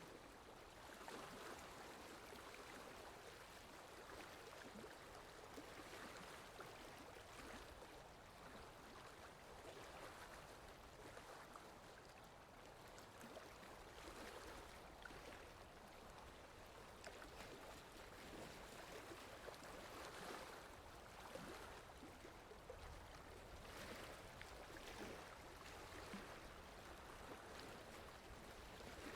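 Water lapping gently and faintly, in soft swells every few seconds, over a low wind rumble.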